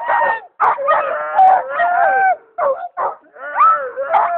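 A team of sled dogs in harness howling and yipping, several voices at once in wavering calls that rise and fall, broken by short pauses.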